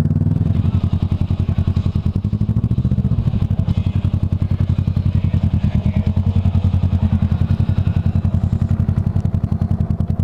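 Kawasaki ER-6n's parallel-twin engine running at low revs while riding slowly, a steady pulsing drone that stays at about the same pitch throughout.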